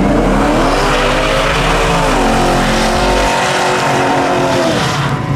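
A car engine revving hard. Its pitch climbs through the first second and a half, dips briefly, climbs again and holds high, then falls away near the end.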